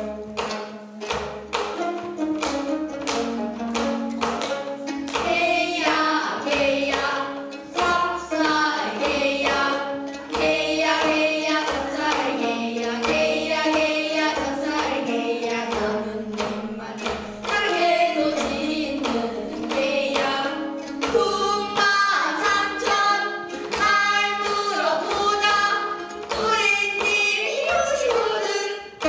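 Girls singing a Korean folk song together while accompanying themselves on plucked gayageum, the Korean long zither, in the style of gayageum byeongchang. The voices carry the melody over a steady stream of plucked string notes.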